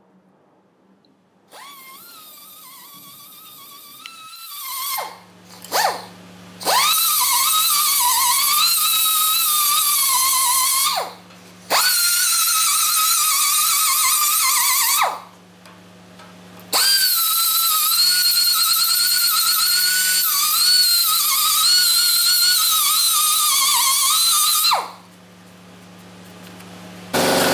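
Pneumatic cutoff tool with an abrasive cutoff wheel cutting a notch into the steel front axle knuckle of a 1903 Ford Model A, to clear out a fatigue crack before welding. A high whine, quieter at first, then three long loud cuts with short stops between them, its pitch wavering and sagging as the wheel bites into the metal.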